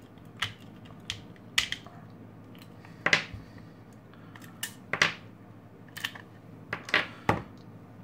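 AAA batteries being pried out of a salt and pepper mill's battery compartment and set down on a tabletop: a series of about ten sharp clicks and clacks at irregular intervals.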